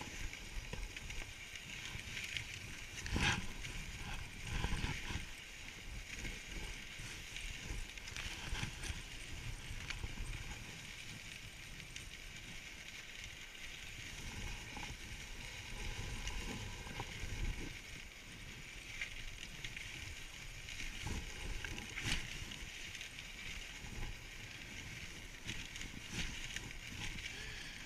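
Dog sled moving along a snowy trail: a steady hiss of the runners sliding over snow, with irregular knocks and thumps from the sled, sharpest about three seconds in and again near twenty-two seconds.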